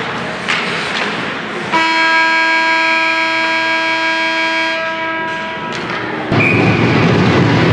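Arena scoreboard horn sounding one long, steady blast of about three to four seconds. About a second after it stops, a louder rush of noise sets in.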